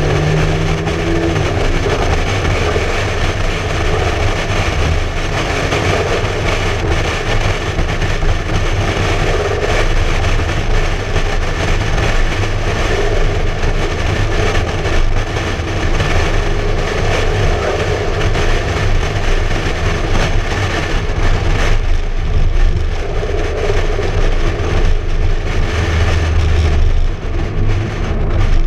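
Wind buffeting and road noise at highway speed, with a McLaren MP4-12C Spider's twin-turbo V8 running underneath, heard from a camera mounted on the outside of the open-top car.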